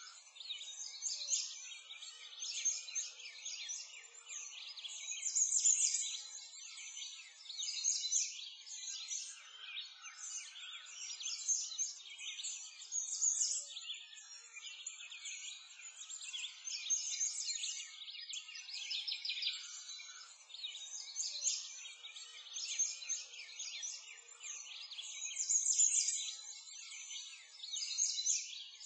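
Continuous chorus of many songbirds chirping and singing over one another, with nothing low or deep beneath it.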